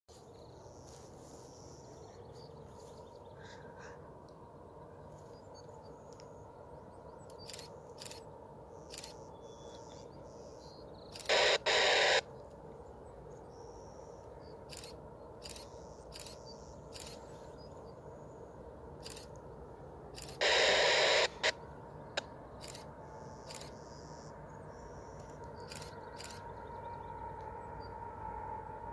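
Quiet open-air ambience with scattered short bird chirps and two loud, harsh bird calls, each about a second long, about a third and two-thirds of the way through. Near the end a faint low rumble with a steady tone slowly grows as a distant freight train approaches.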